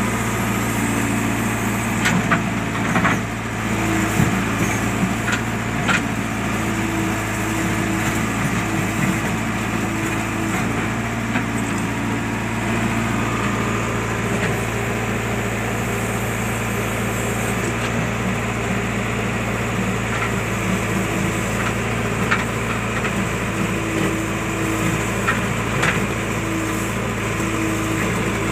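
JCB backhoe loader's diesel engine running steadily while it works, with short knocks now and then.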